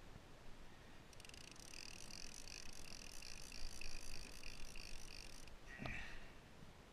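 Fishing reel's drag buzzing for about four seconds as a running blue shark pulls line off the reel, over wind and sea noise.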